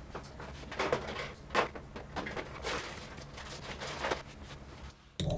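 Scattered light clicks, knocks and rustles at irregular intervals: small objects being handled and moved about while batteries are searched for.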